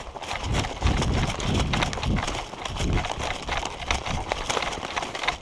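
Running footsteps crunching through thick dry leaf litter, close to the microphone, about two strides a second, with the rustle and crackle of the leaves between the steps.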